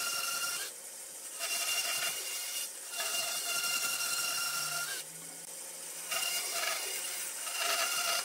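Handheld electric power tool working wood with a steady whine and a hiss, running in about four passes with short pauses between them.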